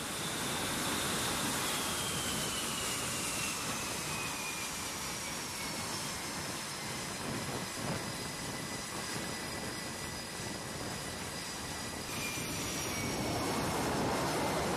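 F/A-18 Super Hornet's jet engines running while it is hooked to the catapult: a loud, steady jet noise with a high whine that slides down in pitch, and a second falling whine near the end as the noise grows a little louder.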